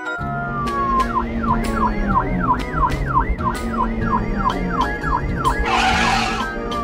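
Cartoon police car siren sound effect, a fast up-and-down wail at about two sweeps a second, over light background music. A short burst of rushing noise comes near the end.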